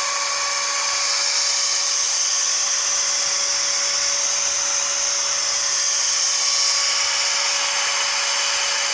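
Desktop computer cooling fan running at full speed: a steady whine over a constant rush of air.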